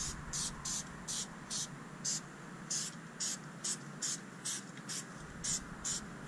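Aerosol can of Turtle Wax label and sticker remover spraying in short, quick squirts, about two to three hisses a second, onto old vinyl boat decals to soften their adhesive.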